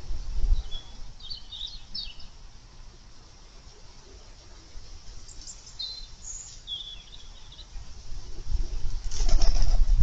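A woodpigeon takes off from its perch with loud, rapidly beating wing flaps near the end. Earlier, small birds give short high chirps twice.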